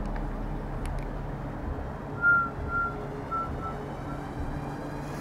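A short run of high whistle-like notes, about five, each shorter and fainter than the one before, over a steady low hum.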